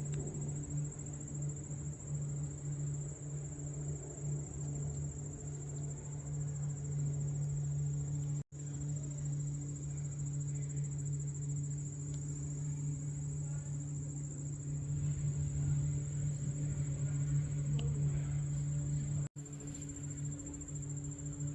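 Insects singing a steady, high, unbroken trill over a steady low hum. The sound drops out briefly twice, at cuts.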